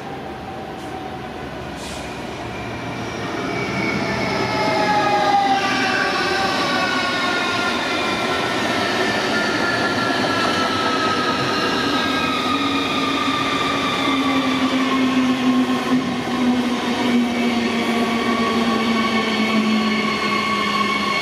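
An RRX Siemens Desiro HC (class 462) double-deck electric multiple unit running past, its wheels and running gear rumbling on the rails. Electric traction motors whine in several tones that sink slowly in pitch. It grows louder over the first few seconds, then stays loud as the train goes by.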